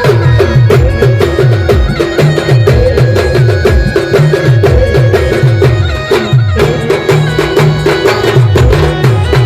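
Adivasi star band music: a busy lead melody over a steady held note and a fast beat of low drum hits, each falling in pitch, about two to three a second.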